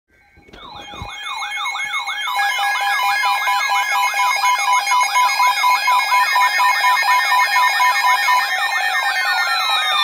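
Several weather alert radios sounding their alarms at once for a winter storm warning. Their warbling, siren-like tones sweep up and down a few times a second and overlap with steady beeps. They swell up over the first couple of seconds, and a falling tone slides in near the end.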